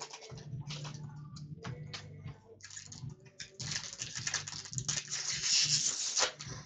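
Hockey trading cards and pack wrappers being handled: quick rustles and clicks, then a longer, louder rustle from about three and a half seconds in until near the end, over a faint steady low hum.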